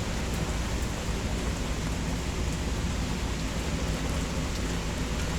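Rain falling steadily, with a low rumble underneath.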